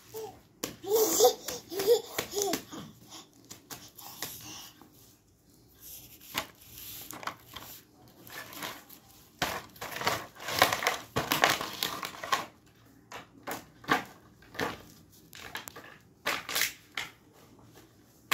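A baby babbling in the first few seconds, then repeated crinkling and crackling as a thin plastic cat-face mask toy is handled and pushed across a plastic floor mat, loudest about ten to twelve seconds in.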